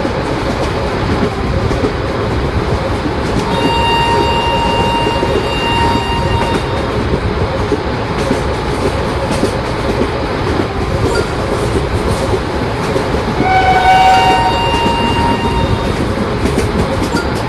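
Indian Railways electric train running past with a steady rolling rumble and wheel clatter. A horn sounds in two blasts about four seconds in, and a horn of a different pitch sounds again about fourteen seconds in.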